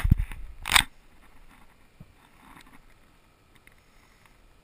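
Close handling noise: rustling and knocks for about the first second, ending in a louder crunchy scrape, then only a faint steady hiss.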